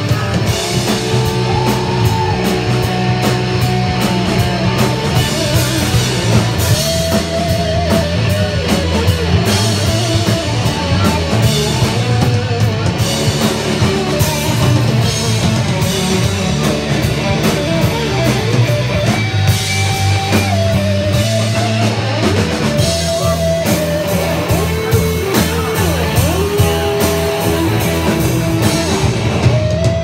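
Live rock band playing an instrumental stretch of a song: electric guitars over bass and a drum kit.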